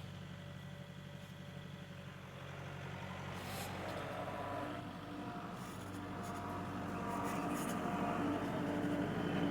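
A motor engine running steadily, getting louder from about halfway through as a higher whine comes in over its low hum.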